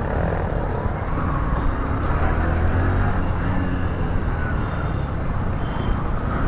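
Steady riding noise from a Honda Shine motorcycle moving slowly in city traffic: low engine and road rumble with wind on the rider's microphone.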